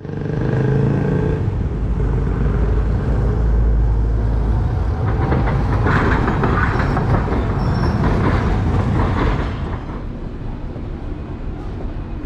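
Street traffic with a Hiroshima streetcar passing. A low rumble of road traffic comes first, then from about five seconds in the tram's wheels clatter on the rails for several seconds. The sound eases to a quieter traffic hum near the end.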